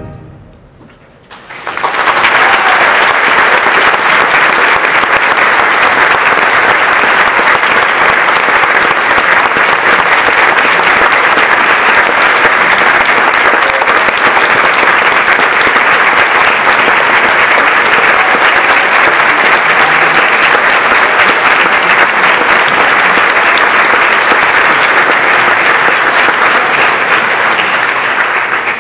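Audience applauding steadily, starting about two seconds in after the echo of a concert band's final brass chord dies away.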